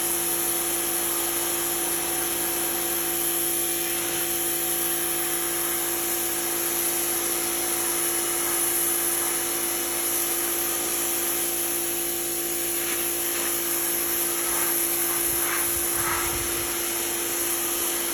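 Suyncll electric pressure washer running steadily: its motor and pump hum under the hiss of the water jet. The sound cuts off suddenly at the very end.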